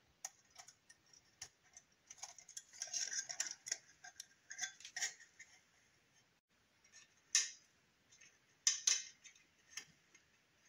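Light clicks and scraping of small plastic model-kit parts being handled and fitted together: a 1/24 car chassis with its wheels and metal axle. The scraping clusters in the first half, and a few sharper clicks come later.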